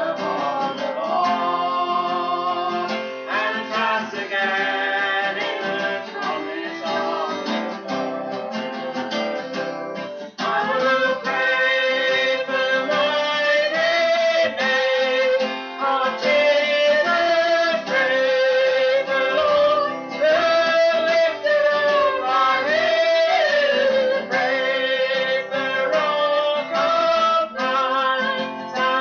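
A woman and a man singing a worship song together, with strummed acoustic guitar accompaniment. The music dips briefly about ten seconds in, then goes on.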